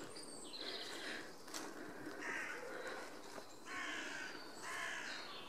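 Crows cawing: several separate harsh caws in the second half.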